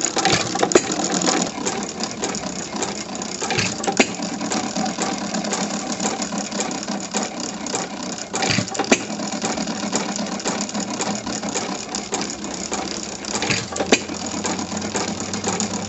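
c. 1912 Domestic Type A 1 1/2 hp sideshaft hit-and-miss engine running, its sideshaft gears and valve gear clattering steadily. A sharp firing bang stands out about every four to five seconds.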